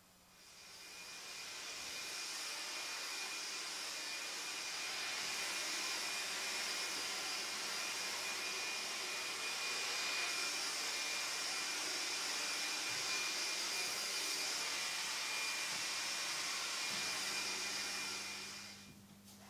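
A steady rush of blown air with a thin, high motor whine, like an electric blower running. It fades in over the first couple of seconds, holds level, and dies away shortly before the end.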